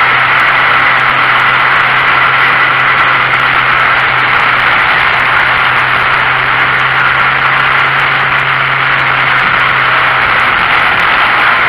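VW Golf Mk1 race car's engine running at steady revs, heard from inside the cabin under loud wind and road noise.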